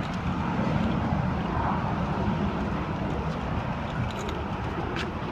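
Car engine running, a steady low rumble, with a faint click near the end.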